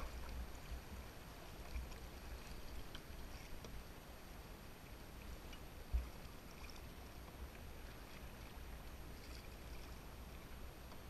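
Faint, steady rush of shallow river water around a canoe drifting downstream, over a low rumble. A single dull knock sounds about six seconds in.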